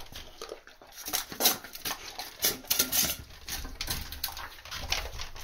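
Bull terrier puppies chewing and crunching raw chicken feet out of stainless steel bowls, with irregular clicks and clinks as the metal bowls knock and scrape on the tiled floor.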